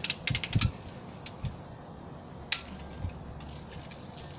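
BB gun being worked by hand: a quick run of metallic mechanism clicks, as when it is cocked, then a single sharp click about two and a half seconds in.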